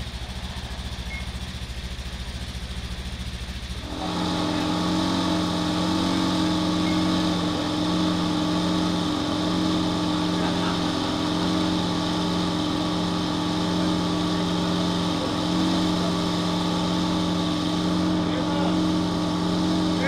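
Fire engine's engine idling, then about four seconds in suddenly stepping up to a steady higher speed and holding there with a loud, even hum.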